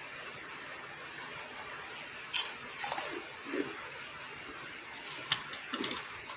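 Metal cutlery clinking against a bowl during eating: two sharp clinks about two and a half and three seconds in, then several lighter taps near the end, over a steady background hiss.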